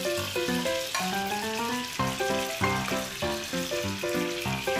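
Tuna steaks sizzling as they fry in hot oil, under background music of short, quick notes.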